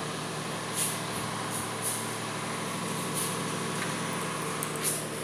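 Steady hum of a generator engine running, with a constant high hiss over it and a few short clicks.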